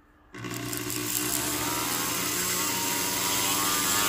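Flex shaft rotary tool switching on about a third of a second in and running steadily at speed, spinning a doubled sandpaper disc on a mandrel against a gold ring to sand away excess super glue.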